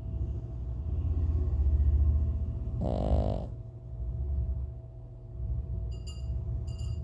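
Deep, rumbling snoring, loudest about two seconds in, broken about three seconds in by one short, higher-pitched snort, then softer snores.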